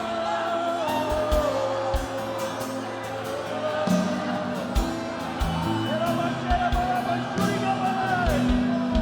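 Live worship music: sustained chords that change about four seconds in, with low drum hits and wordless singing voices wavering over them.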